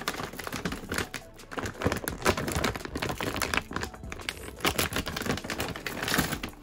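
Plastic dry-cat-food bag crinkling and crackling as it is torn open across the top, a dense run of quick, irregular crackles.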